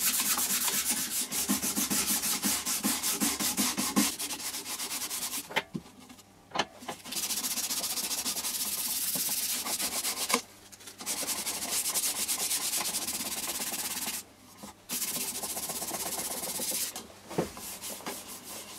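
Hand sanding with 240-grit sandpaper along the grain of a honey locust wood bowl: quick, scratchy back-and-forth rubbing that stops for a moment a few times as the hand shifts.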